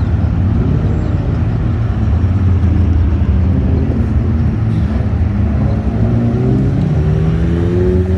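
Deep exhaust rumble of sports cars rolling past at low speed. About six seconds in, one engine's note starts rising steadily in pitch as it accelerates.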